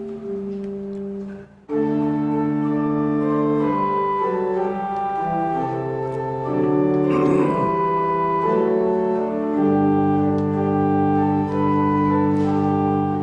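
Organ playing slow, held chords, which break off briefly about one and a half seconds in and then come back in louder.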